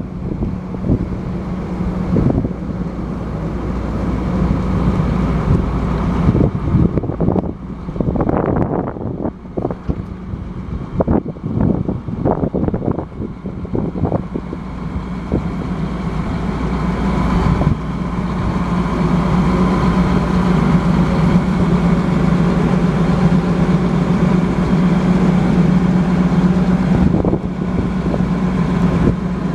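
Massey Ferguson 9280AL combine harvester's diesel engine running steadily, with wind buffeting the microphone and a cluster of knocks in the middle. The engine sound grows louder and fuller in the second half.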